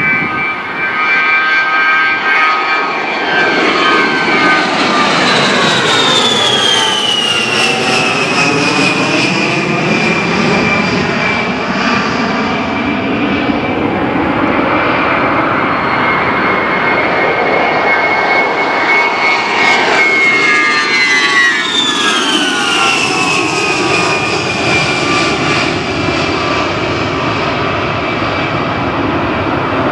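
A-10 Warthogs passing low one after another, their twin TF34 turbofans giving a steady jet rush topped by a high whine that drops sharply in pitch as each goes by, about five seconds in and again about twenty-one seconds in.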